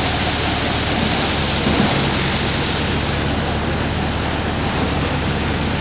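Tractor-driven paddy thresher running steadily: a loud, even rushing noise from the spinning threshing drum and fans, over the low steady hum of the tractor engine driving it.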